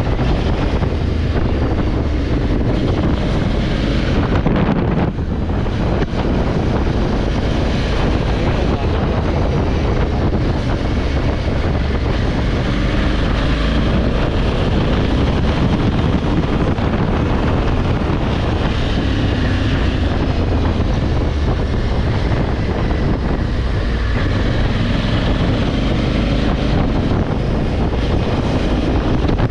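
Honda Africa Twin 1100 parallel-twin motorcycle engine running under way, with heavy wind rushing over the microphone.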